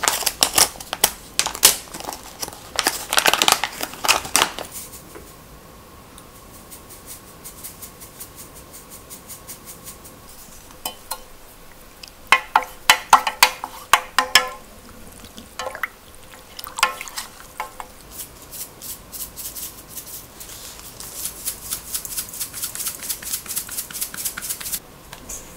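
Crinkling of a yeast packet being opened, then a spoon clinking quickly against a stainless steel cup as it stirs yeast into water. Quick light ticking follows near the end.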